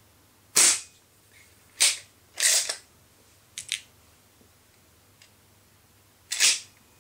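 Baikal IZH MP-53M spring-piston break-barrel air pistol firing with a sharp crack about half a second in. Clacks and a double click follow, typical of breaking the barrel open, cocking the spring and relocking it. A second, equally loud crack comes near the end.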